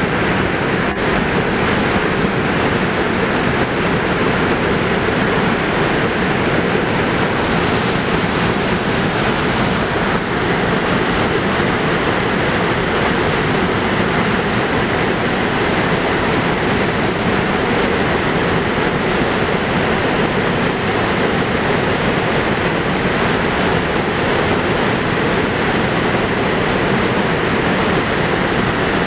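Steady rush of a broad waterfall: a wide curtain of white water pouring over a rock ledge and crashing into the river below, with no change throughout.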